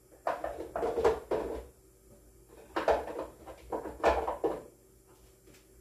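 Spice containers knocking and sliding against a kitchen cabinet shelf as someone rummages through it, in two bursts of clatter.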